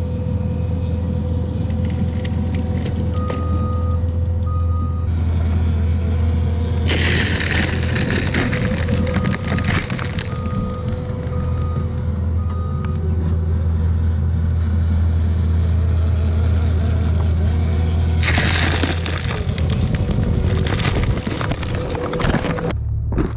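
Skid steer's diesel engine running steadily under load while its hydraulic Harley rake churns and pulverises loose soil, with louder stretches of scraping twice. A backup beeper sounds in two short runs of beeps.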